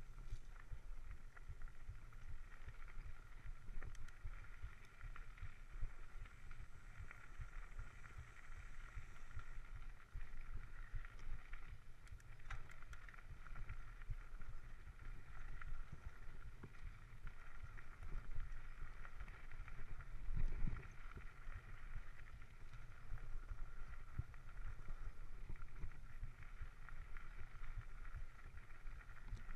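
Mountain bike riding over a dirt trail, picked up by a chest-mounted camera: a continuous rough rumble of tyres and bike over the ground mixed with wind on the microphone, with one louder bump about two-thirds of the way through. A steady high-pitched whine sits in the background.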